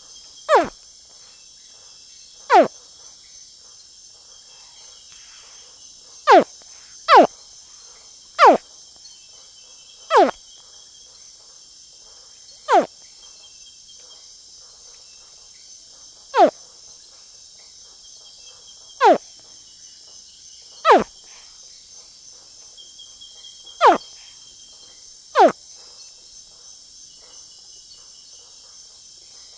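Baby crocodile calling: about a dozen short chirps, each falling sharply in pitch, spaced irregularly one to four seconds apart. A steady high insect chorus runs underneath.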